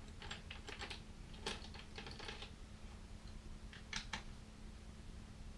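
Irregular light clicks and taps of hand tools working the pannier-rack mounting bolts as they are run down, in small clusters with two sharper clicks near the end, over a faint steady hum.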